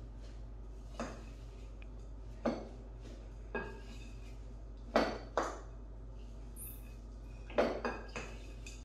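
Wooden salad servers knocking and scraping against a glass mixing bowl while a salad is tossed: about eight irregular clinks, the loudest pair about five seconds in.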